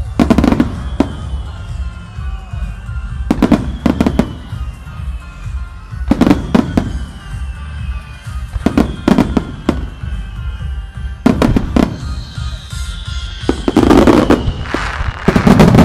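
Aerial firework shells bursting in volleys of several sharp bangs about every two to three seconds, the last volleys the heaviest, with music playing underneath.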